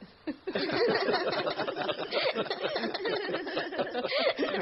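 A group of people laughing together, children and an older man among them, the laughter starting about half a second in and carrying on.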